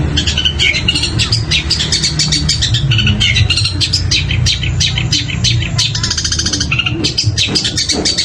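Long-tailed shrike (cendet) singing a fast, unbroken run of sharp chirps and mimicked calls of other birds, with a rapid rattling trill a little past the middle. A steady low hum lies underneath.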